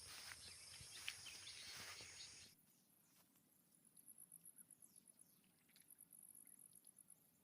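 Faint rustling with scattered clicks and taps, then an abrupt cut to quiet, where an insect chirps in repeated trains of rapid, high-pitched pulses.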